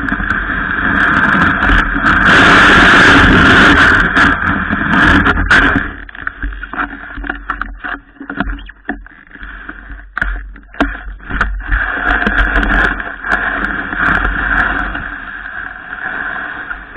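A snowboard sliding and scraping over snow, a continuous rough hiss with a low rumble. It is heaviest a couple of seconds in and turns choppy and crackly in the middle before steadying again.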